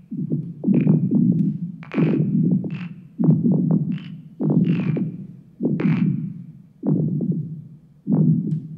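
Contemporary chamber music with live electronics: a low, grainy sound starts sharply about every 1.2 seconds and fades each time, with clicks and brief higher glints on top.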